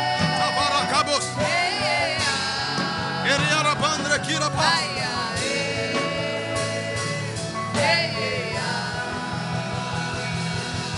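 Worship music: sustained instrumental chords under a voice singing long, wavering melodic lines without clear words.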